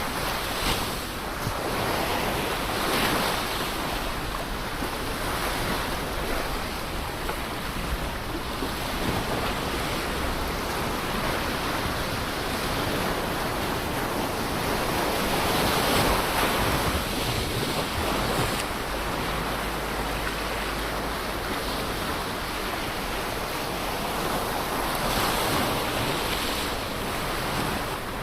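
Ocean waves breaking and washing on the shore, a steady surf with swells that peak every few seconds, one of the largest about halfway through.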